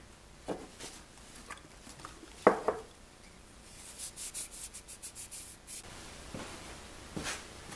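Paper towel rubbing Danish oil into a wooden spinning top: soft, scratchy wiping strokes, with a quicker run of strokes about four seconds in. One brief, sharp, louder clack about two and a half seconds in.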